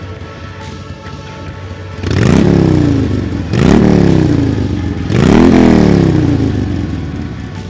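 Motorcycle engine idling, then revved three times about a second and a half apart, each rev climbing quickly in pitch and dying away slowly.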